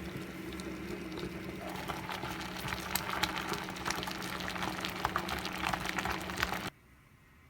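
Water heating toward the boil, with a steady hum under a crackle of forming bubbles that builds and thickens. It cuts off suddenly near the end.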